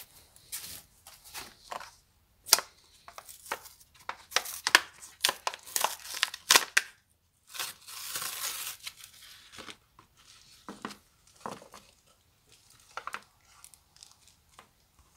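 Plastic packaging of an oil seal kit being torn open and handled: irregular crinkling, crackling and clicks, with one longer tearing stretch of about two seconds around eight seconds in.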